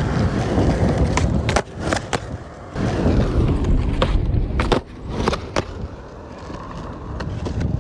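Skateboard wheels rolling with a steady rumble, with several sharp clacks of the board and trucks. The rumble cuts out briefly a few times.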